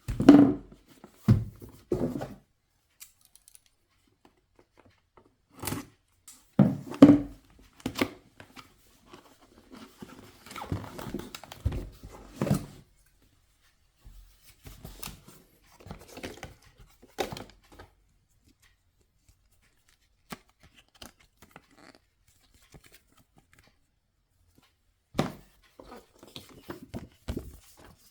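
Packaging being handled and opened: irregular tearing and rustling with scattered knocks, in clusters with short pauses between.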